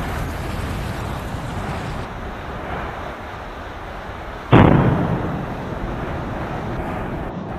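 Phreatic steam-blast eruption where lava meets ground water: a steady noisy rush from the erupting vent, with one sudden loud explosion about halfway through that dies away over a second.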